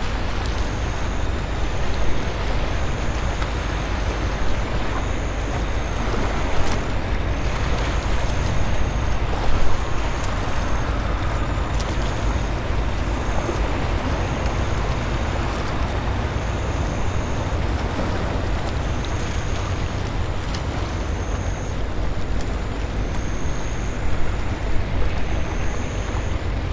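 Wind buffeting the microphone with a steady outdoor wash of noise, a few brief knocks, and a faint high chirp repeating roughly once a second.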